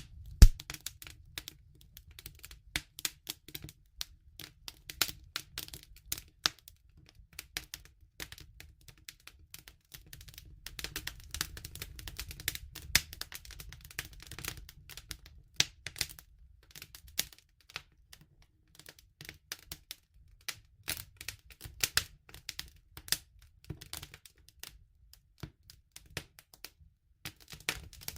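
Campfire crackling: dense, irregular snaps and pops of burning wood over a low steady rumble, with one loud pop just after the start.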